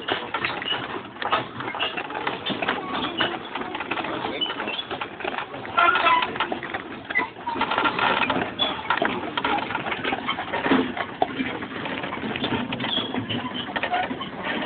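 Horse-drawn wagon behind a two-horse team, rattling and clattering as it moves, with the harness jingling and creaking: a steady clatter of many small knocks.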